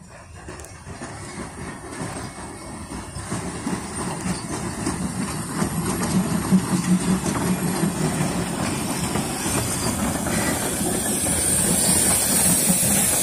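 NGG16 Garratt narrow-gauge steam locomotive and its carriages rolling in along the rails, growing steadily louder as they approach. A steam hiss rises as the engine draws close near the end.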